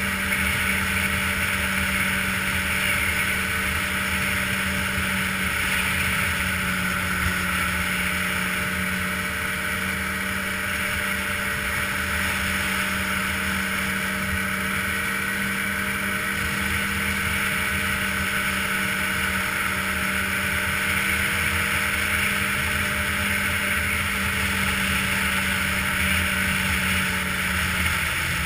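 Ski-Doo touring snowmobile's engine running at a steady cruising speed, with track and wind noise. The engine note eases down slightly at the very end.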